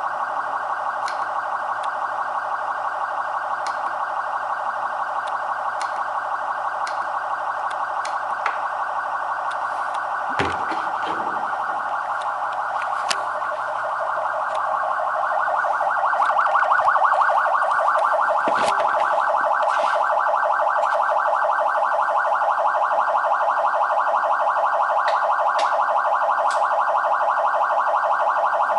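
Electronic police siren sounding a fast, steady pulsing tone that does not sweep up and down, getting louder a little past the middle. A couple of knocks and a few faint ticks are heard over it.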